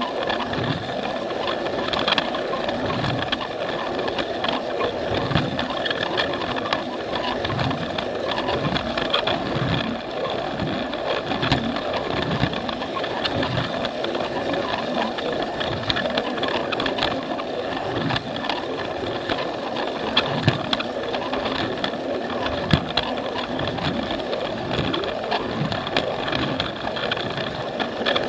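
Plarail toy train's small battery motor whirring steadily, with irregular clicks as its wheels run over the plastic track.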